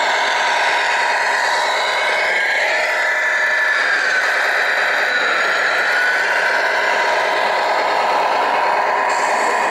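Radio-controlled scale truck running: a steady, thin engine sound with little bass, and a whine whose pitch dips and rises twice.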